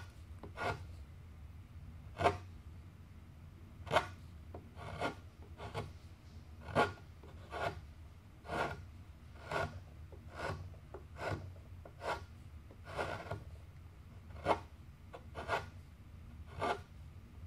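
Wide-blade chisel pushed by hand across the end of a cypress tenon, paring off thin shavings to round over its edges: about twenty short cuts, roughly one a second.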